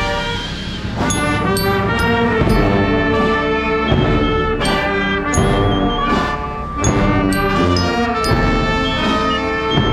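Guatemalan procession band of clarinets, trumpets, trombones, sousaphone and drums playing a slow funeral march (marcha fúnebre). The band plays in full, held chords with drum and cymbal strikes now and then.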